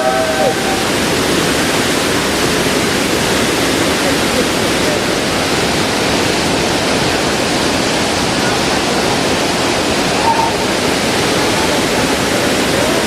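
Waterfall's water crashing down: a loud, steady rush of falling water.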